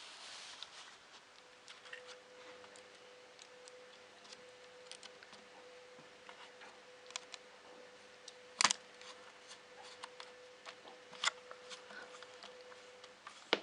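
Small clips being fitted onto a Sinclair ZX Spectrum+ case, with light scattered clicks and ticks of handled plastic and metal parts and one sharp, louder click about two-thirds of the way through. A faint steady hum runs under most of it.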